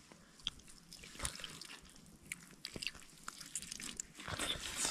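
A person biting and chewing a fire-roasted chicken leg close to the microphone: quiet scattered smacks and small crunches, coming more closely together near the end.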